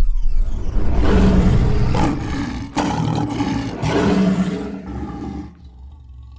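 A lion's roar sound effect, loud, in two long surges, dying away about five and a half seconds in.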